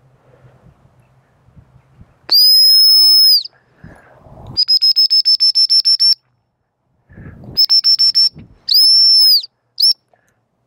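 Gundog training whistle: one long blast with a slight bend in pitch, then a fast run of about ten short pips, a shorter run of about five pips, another long blast and a brief final blip. A single long blast is the usual gundog stop signal, and rapid pips the usual recall.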